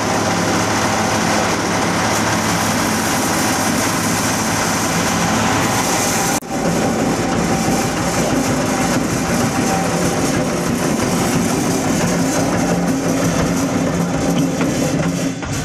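Small red stationary diesel engine running steadily under load, driving a hammer-mill coconut husk grinder that is shredding coir into cocopeat. The sound is loud and continuous, with a brief break about six seconds in.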